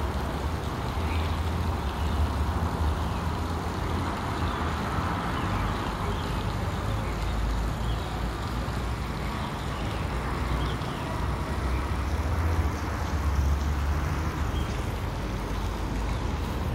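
Steady noise of road traffic with a deep, fluctuating rumble underneath.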